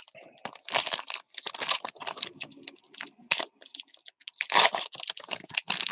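Foil wrapper of a baseball card pack being torn open and crinkled by hand: a run of irregular rips and crackles.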